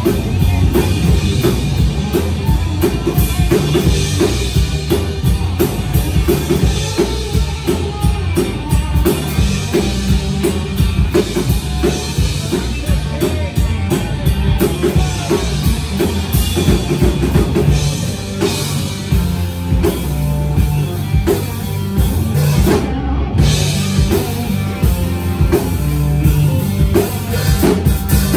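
Live rock band playing, with a loud drum kit keeping a steady beat.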